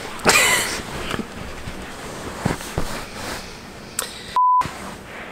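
A loud, breathy burst of noise just after the start, then faint room sound and a couple of small clicks. About four seconds in comes a single short steady beep, with all other sound cut out around it: a censor bleep over a word.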